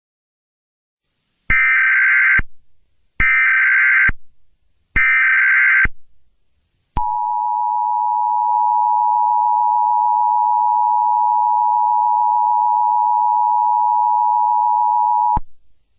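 Emergency Alert System SAME header: three one-second bursts of buzzing data tones, followed about seven seconds in by the EAS two-tone attention signal, a steady dual tone held for about eight seconds.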